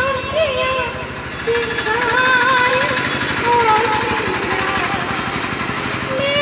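A woman singing solo into a handheld microphone, holding long notes that slide and waver in pitch. Under the voice runs a steady, low, evenly pulsing engine-like rumble.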